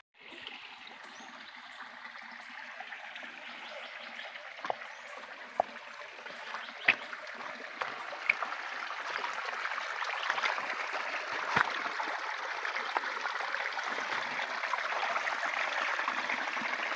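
Small stream running over rocks, a steady rushing that grows gradually louder, with a few short sharp knocks scattered through the middle.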